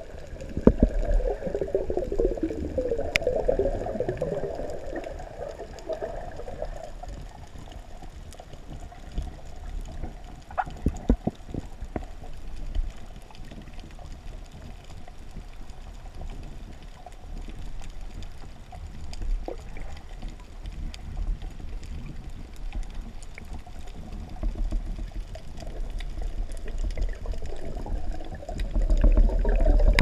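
Water heard underwater: muffled gurgling and sloshing with a low rumble, louder in the first few seconds and again near the end, with scattered faint clicks throughout.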